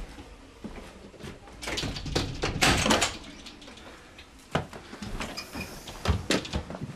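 An old dishwasher being handled and moved out: scattered knocks and clatters, with a louder scraping rush about two to three seconds in.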